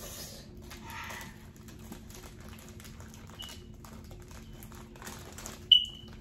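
Crunchy Hot Fries corn snacks being chewed, with the foil snack bag crinkling: a run of small dry crackles. Near the end comes a single sudden high-pitched squeak, the loudest sound.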